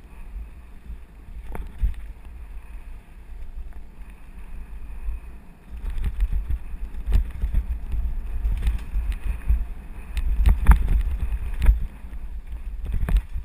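Wind buffeting the action camera's microphone as a mountain bike rides fast down a dirt trail, with a steady low rumble and repeated knocks and rattles as the bike jolts over the ground. The knocks become denser and louder about halfway through.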